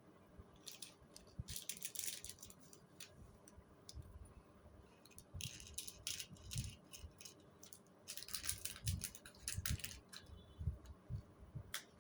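Packaging being handled: crinkling and rustling in several short spells, with soft knocks of items being set down.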